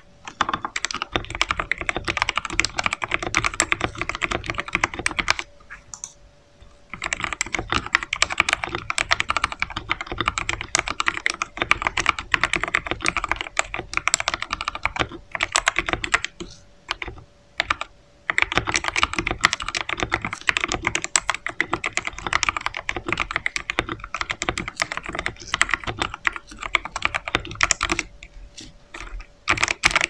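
Fast touch-typing on a mechanical keyboard with lubed Outemu Red linear switches and PBT keycaps: a dense stream of key presses bottoming out. It breaks off for about a second and a half a little over five seconds in, and briefly a few more times later.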